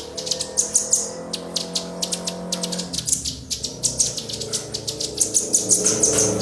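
Small birds calling in a rapid series of sharp, high chips, several a second, with a low steady hum underneath.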